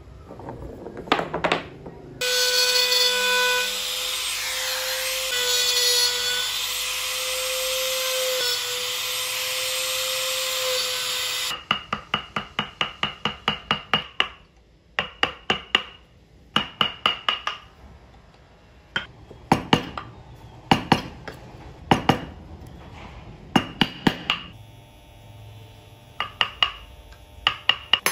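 A small power tool runs steadily at one pitch for about nine seconds, then cuts off. After it, a wooden mallet taps a carving gouge into small wooden wheels: a rapid run of sharp strikes at about five a second, then short bursts of taps with pauses between.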